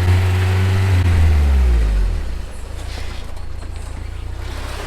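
Off-road vehicle engine running under load. About two seconds in, its pitch falls away and it settles to a lower, steady idle.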